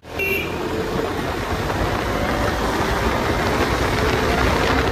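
Bajaj Dominar 250 motorcycle riding on the road: a steady mix of engine rumble and wind and road noise, with a short high beep just after the start.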